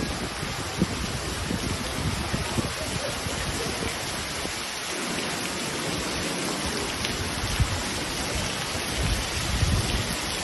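Torrential rain pouring down in a steady, dense hiss, with irregular low thumps and buffeting on the microphone.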